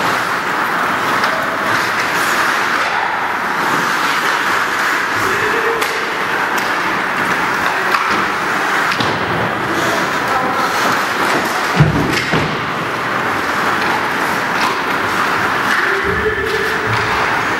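Ice hockey play in an ice rink: steady arena noise with scattered sharp clicks of sticks and puck, and one loud thud about twelve seconds in.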